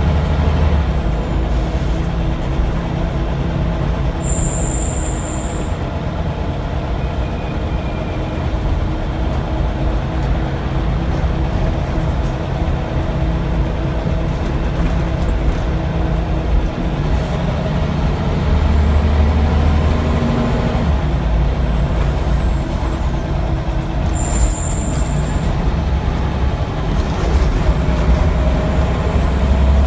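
Scania L94UB single-decker bus heard from inside the saloon while under way: diesel engine running with a continuous low rumble and road noise. The engine note swells about two-thirds of the way through and again near the end. A brief high-pitched tone sounds twice.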